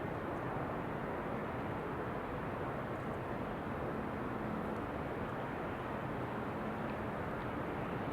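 Steady, even rushing noise of wind blended with added white noise, with no distinct events. A faint low hum sits under it around the middle.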